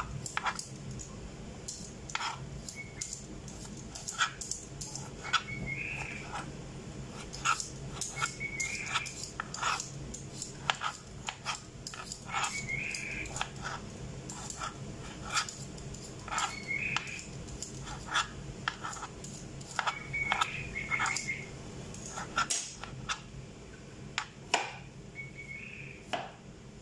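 Kitchen knife slicing pickled gherkins on a plastic cutting board: irregular sharp taps of the blade hitting the board, about one or two a second, over a steady low hum. A short high-pitched sound recurs about every three to four seconds.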